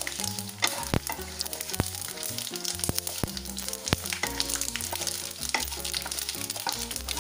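Whole spices and dried red chillies sizzling in hot mustard oil in a nonstick kadai while a wooden spatula stirs them, with several sharp taps of the spatula against the pan. Background music plays.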